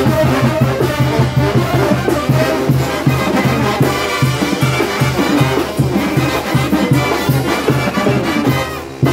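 Oaxacan brass band playing a lively tune: trumpets and trombones carrying the melody over sousaphones and drums, with a steady bass beat of about three a second.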